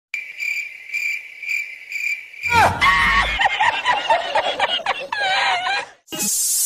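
A high, steady chirping tone that pulses about twice a second, like crickets, followed by a high-pitched voice with snickering, and near the end a brief rush of hiss.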